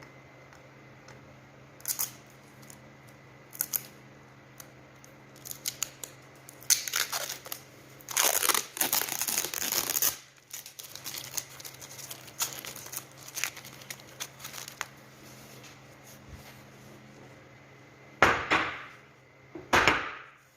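Crinkling and tearing handling noise in irregular bursts, loudest a third of the way in, with two sharp rips near the end.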